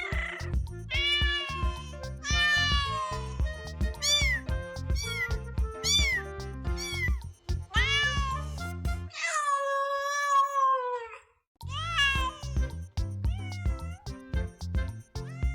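Kittens meowing again and again in short, high, arching calls over background music with a low beat. Near the middle the music drops out for about two seconds while one longer, falling meow sounds on its own.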